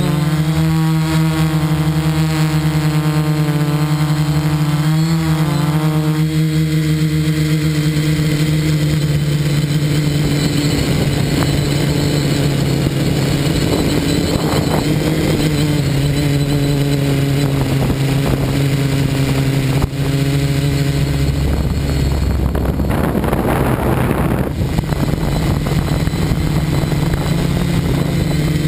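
Electric motors and spinning propellers of an FPV multirotor drone, heard from its onboard camera as a loud, steady drone-like hum that shifts a little in pitch with the throttle. About three-quarters of the way through, a rougher rush of noise joins the hum for a few seconds.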